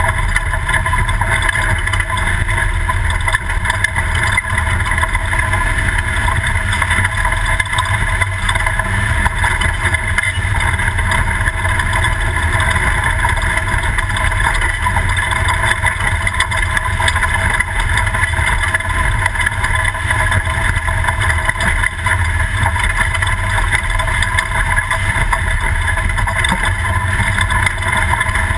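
Toyota Class 2000 desert race truck driving at speed: a steady, loud mix of engine and road noise with a constant low rumble.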